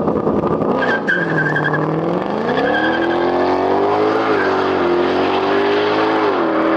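Sports car engine under hard acceleration, its note climbing, with brief dips about four and six seconds in as it shifts gear. Tires squeal about a second in.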